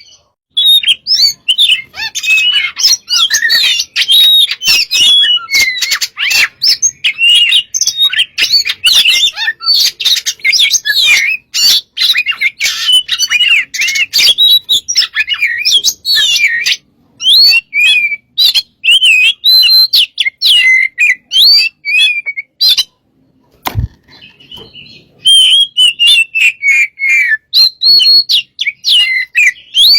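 Oriental magpie-robin singing loudly and continuously in rapid, varied phrases of whistles, trills and harsh chirps. It pauses briefly twice, and there is a single dull thump during the second pause.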